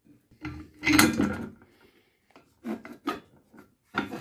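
Several short rubbing and scraping handling noises, the loudest about a second in and a few more near the end.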